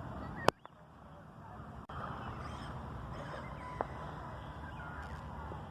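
A sharp firework bang about half a second in, and a fainter pop a little before four seconds, over steady outdoor background noise.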